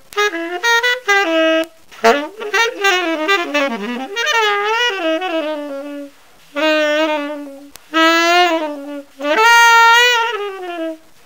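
Solo improvised melody on a single wind instrument with no accompaniment, played in phrases with short breaks between them and some wavering pitch.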